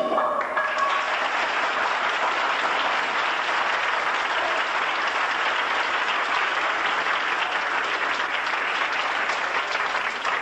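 Audience applauding, a steady, dense clapping that holds at an even level.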